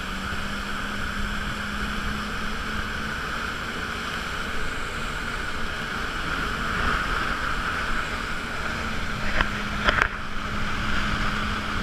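Jet ski engine running at a steady cruise with a constant low hum, over the rush of water against the hull. A couple of short sharp sounds come near the end.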